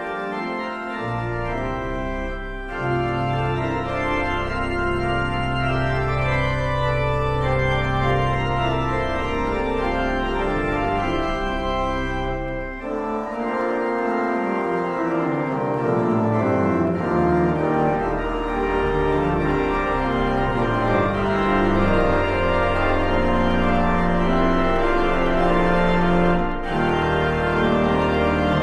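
Organ music playing slow, sustained chords over long held bass notes, the bass stepping down about halfway through.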